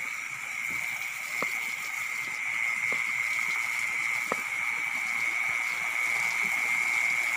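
Night insects, likely crickets, calling in a steady, unbroken high-pitched chorus, with a few faint short clicks about every second and a half.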